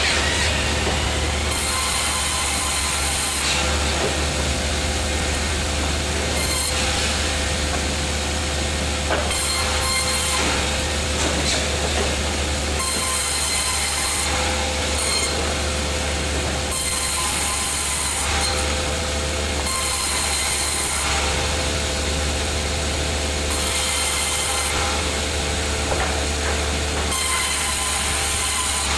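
Sawmill machinery running steadily while a saw cuts through wood: a constant low hum and whine, with a high hiss that comes and goes every few seconds.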